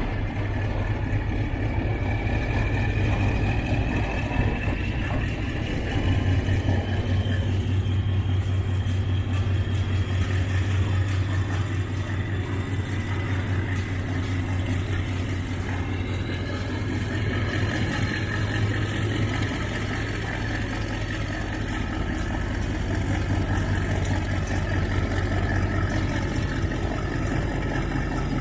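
Dongfeng diesel locomotive's engine running with a steady low drone as it hauls a container train slowly past, with a thin high whine that rises slowly in pitch over the first several seconds.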